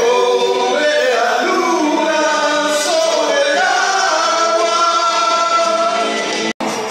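Several voices singing a song together in long, held notes. The sound cuts out for an instant near the end.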